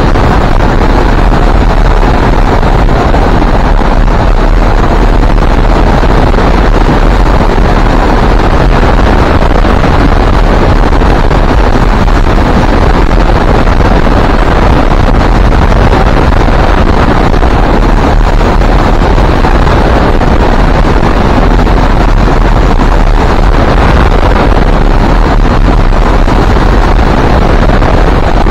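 Loud, steady wind rushing over the microphone of a camera on a hang glider in flight, a constant deep buffeting rumble with no engine tone.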